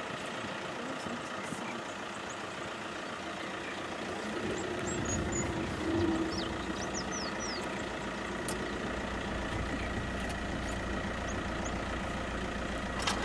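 Safari vehicle engine idling steadily, with a deeper engine rumble coming in about five seconds in and holding. A few short bird chirps are heard.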